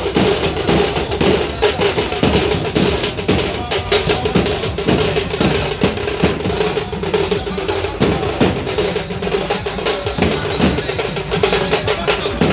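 A troupe of drummers beating large drums with sticks in a fast, dense rhythm, with a steady held tone underneath.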